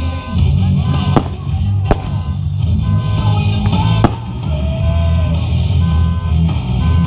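Rock music with drums, guitar and heavy bass, with three sharp cracks standing out about a second, two seconds and four seconds in.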